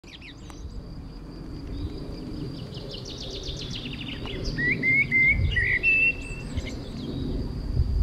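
Small songbirds singing in the trees: a quick trill of notes about three seconds in, then a few short rising whistles and a held note. A thin steady high tone runs underneath.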